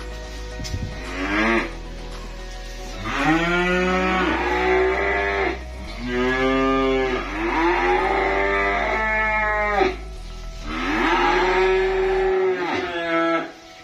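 Calves mooing: several long, drawn-out moos one after another.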